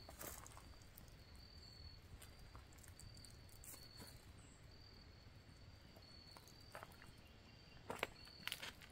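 Faint insect trilling at a steady high pitch in short, repeated phrases, with a few footsteps on dry leaves and gravel near the end.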